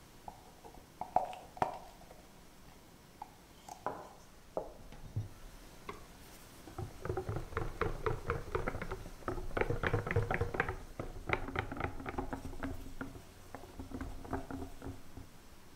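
Balloon whisk mixing partly whipped heavy cream into orange pastry cream in a glass bowl, a stage in making orange mousse. A couple of light clicks come about a second in; from about seven seconds in there are quick, rapid wet whisk strokes that stop near the end.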